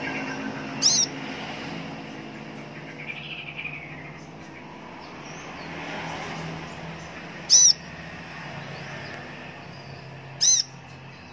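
A Van Hasselt's sunbird giving three short, sharp, high-pitched calls: one about a second in, then two more near the end, about three seconds apart, with fainter chirps in between.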